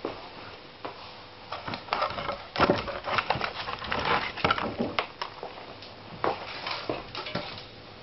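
Split firewood logs knocking and clattering together as they are handled, a run of irregular wooden knocks that is busiest in the middle, over a faint steady hum.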